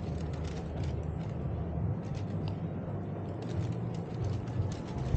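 Steady low hum and rumble with scattered light clicks and knocks: the general background noise of a large exhibition hall.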